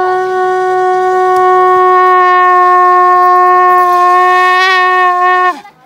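One long, loud note blown on a horn, held steady for about five seconds with a slight waver near the end, then dropping in pitch as the breath gives out.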